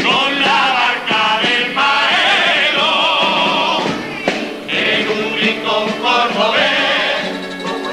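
Male carnival comparsa choir singing together, the voices held with vibrato.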